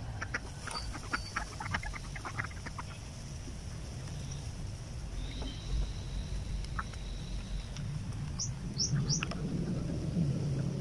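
Birds chirping, with three quick rising chirps near the end, over a low steady rumble. A rapid run of faint ticks comes in the first few seconds.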